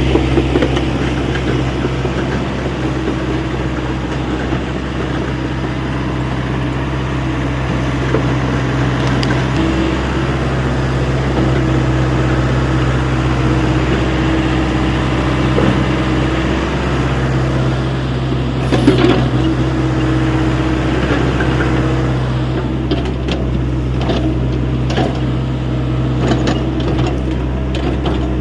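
Hyundai 85A excavator's diesel engine running steadily under work, with a higher tone that comes and goes as the machine is worked. A sharp knock comes about two-thirds of the way in, and scattered clanks and knocks follow near the end.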